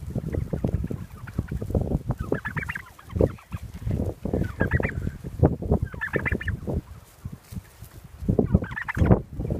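A flock of heritage turkeys calling, with rattling gobbles breaking out about four times. Underneath is a constant low rumble, quieter for a moment shortly before the last gobble.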